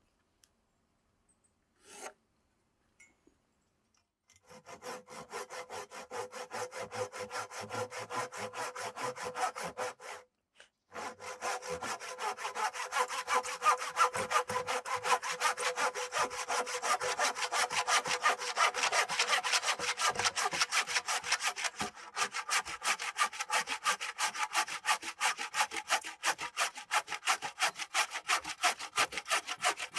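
Handsaw cutting across a wooden board with steady back-and-forth strokes, starting about four seconds in. The sawing pauses briefly about ten seconds in, then resumes louder.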